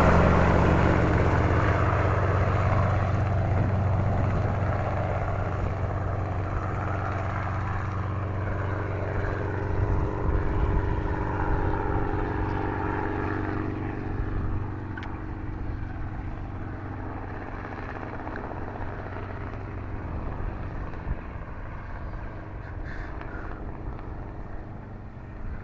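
Helicopter flying away after takeoff, its rotor and engine sound fading steadily.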